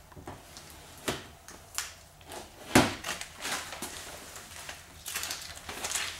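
Squeegee scraping over a wet car door window, with scattered knocks and handling noises; the loudest is a sharp knock about three seconds in, and a denser run of scraping comes near the end.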